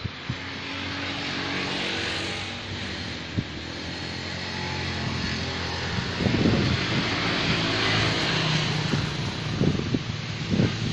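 Road traffic passing: a vehicle sweeps by about two seconds in, then a low, steady engine hum sets in from about six seconds.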